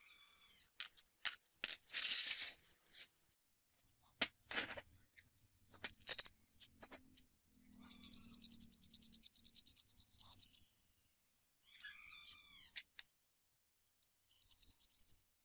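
Small steel hardware being handled and fitted together: bolts, nuts, washers and small ball bearings clinking and tapping against each other and a steel bar. A loud sharp clink comes about six seconds in, followed by a few seconds of rapid light clicking.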